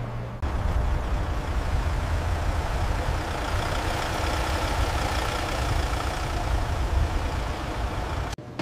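A van's engine running steadily with a deep low sound, starting about half a second in and cutting off suddenly near the end.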